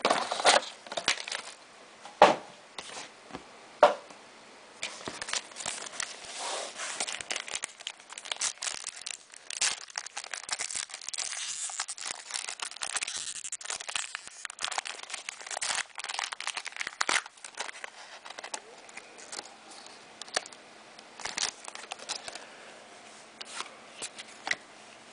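2009-10 Panini Classics basketball card pack wrappers being torn open and crinkled, an irregular run of rustles and sharp crackles with a denser stretch of tearing about halfway through.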